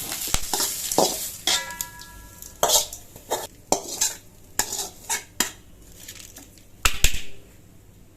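Metal spoon scraping and clanking against a cooking pan as sautéed chutney ingredients are scooped out, with a last bit of sizzling fading at the start. One knock rings briefly about a second and a half in, and two sharp clanks close together near the end are the loudest.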